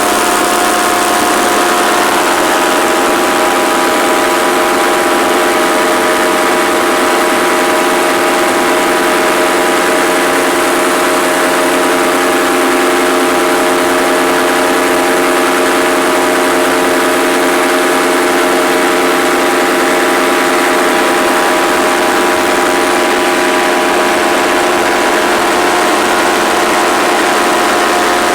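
Paramotor engine and propeller running at a constant throttle, a loud, steady drone that holds one pitch.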